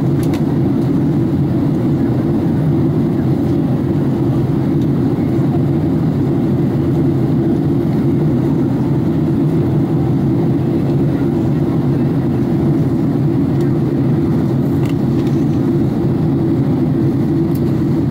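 Steady jet airliner cabin noise heard from a window seat: a constant low rumble of engines and rushing air during the descent to land.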